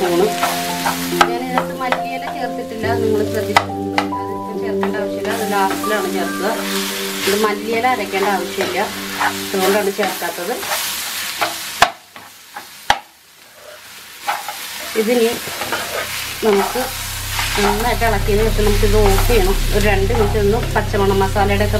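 Sliced onions, tomatoes and chillies sizzling in a non-stick frying pan as a perforated metal spoon stirs and tosses them, with scrapes and light clicks of the spoon on the pan. Background music with held notes plays underneath. There is a brief lull about twelve seconds in.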